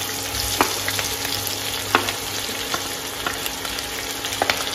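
Sliced onions sizzling as they go into hot coconut oil in a kadai. There are a few sharp clicks from the wooden spatula scraping them off the plate.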